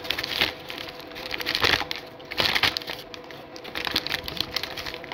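McDonald's paper fries bag being handled close to the microphone, crinkling and rustling in irregular bursts with sharp crackles.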